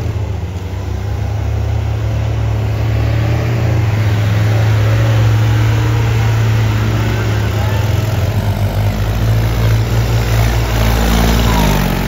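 An old Willys-style jeep's engine running hard under load as it ploughs through deep mud, with mud splashing off the tyres. The engine gets louder a few seconds in as the jeep comes past.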